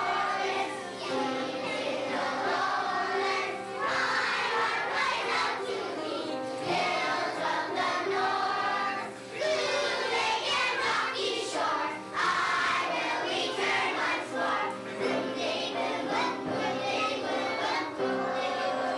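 A group of young children singing a song together over instrumental accompaniment with held chords.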